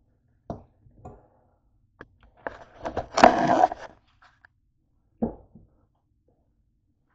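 Handling noise from a camera being picked up and moved: a few knocks, then a scraping rustle that is loudest a little past the middle, and one more thump about five seconds in.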